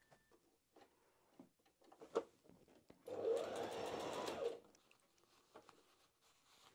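Brother HF27 mechanical heavy-duty sewing machine stitching through layered denim in one short run of about a second and a half, a little after halfway. It is preceded by a few light clicks and a knock of the fabric being handled.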